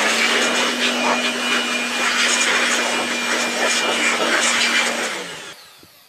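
Handheld electric air blower running steadily with a constant motor hum and rushing air, blowing dust out of an opened CRT television's chassis. About five seconds in it is switched off and spins down to a stop.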